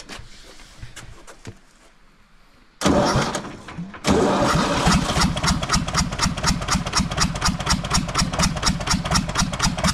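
Universal 550 tractor's diesel engine turned over on the electric starter without catching, an even chugging of about four to five beats a second after a short first burst about three seconds in. The engine is being cranked to test an injector that has been taken out to check its spray.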